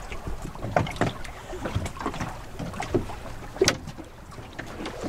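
Lake water lapping and slapping against a boat's hull, with irregular small splashes and knocks and one sharper slap a little past the middle.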